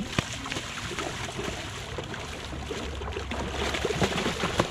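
A large hooked ray, which the angler guesses is a cownose ray, thrashing and splashing at the water's surface as it is grabbed by hand. The splashing grows heavier toward the end.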